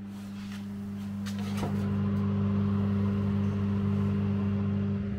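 Fan oven's convection fan running with a steady low hum, growing louder about a second and a half in as the oven door is open and easing back near the end, with a faint click or two as the ramekins go onto the rack.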